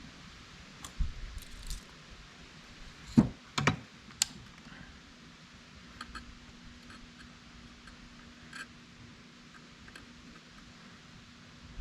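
Scattered light clicks and knocks of wire and tools being handled while the cord's wires are soldered, with a pair of louder knocks about three and a half seconds in. A faint steady hum runs under the second half.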